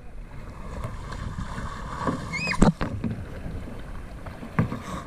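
Kayak paddling on flat water: steady lapping and paddle splashes against a plastic hull, with a sharp knock on the hull about halfway through and a smaller one near the end. A brief high chirp comes just before the first knock.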